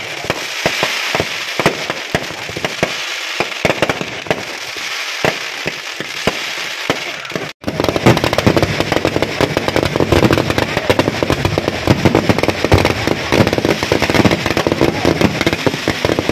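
Aerial fireworks going off: dense crackling of bursting shells with scattered sharp bangs. About halfway through there is a sudden break, and then a faster, heavier barrage of bangs follows.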